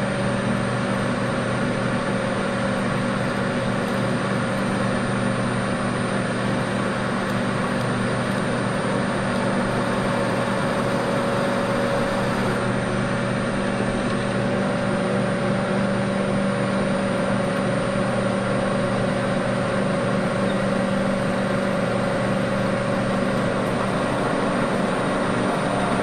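Bridgeport milling machine running steadily at constant speed, its spindle motor giving a steady hum as it drills holes in a 3/4-inch square metal bar.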